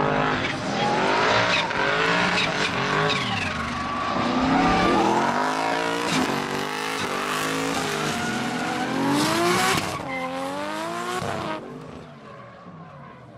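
Drift cars' engines revving up and down as the drivers work the throttle mid-slide, with tyres squealing as they spin. The sound drops away sharply near the end.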